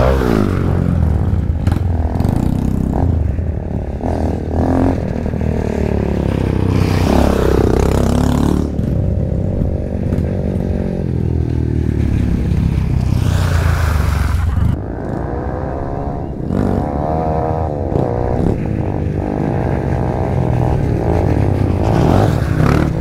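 Trail motorcycle engine revving up and down repeatedly under load, with some clattering. It eases off briefly about two-thirds of the way through, then picks up again.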